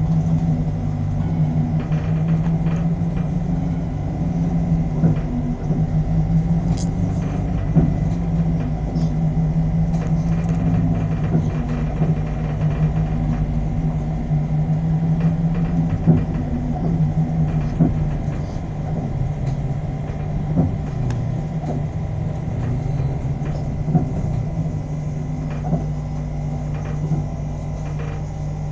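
A battery-electric city bus running, giving a steady electric hum over a low rumble. There are a few light knocks, and the sound eases slightly in level about two-thirds of the way in.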